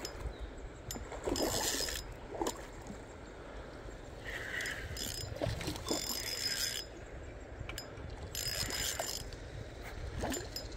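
Spinning reel being cranked in bursts of whirring and clicking while a hooked smallmouth bass is reeled in.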